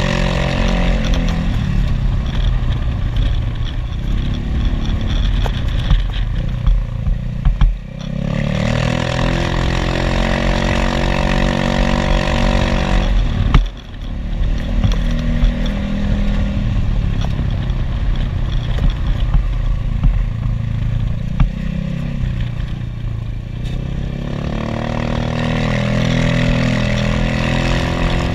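Motorcycle engine running under way, heard from the bike with wind rush, its pitch slowly rising and falling as the throttle opens and closes. The engine note drops briefly twice, about 8 and 14 seconds in, each time with a sharp click.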